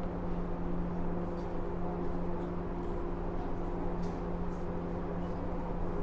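Inside a JR West 103 series electric train motor car, a steady electrical hum at an unchanging pitch, with no rise or fall of traction-motor whine: the train is standing still or holding a steady state. A few faint ticks are heard.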